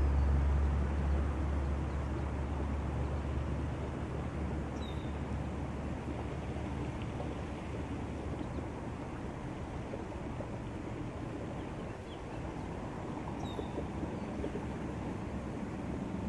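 Steady outdoor rushing noise with a deep low rumble that fades away over the first few seconds, and two faint short high chirps about eight seconds apart.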